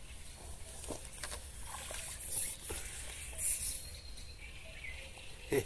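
Water splashing and draining off a landing net as a hooked fish is netted and lifted out of the lake, with small clicks from handling the rod and net, and a few short hissy splashes in the middle. A person's voice starts right at the end.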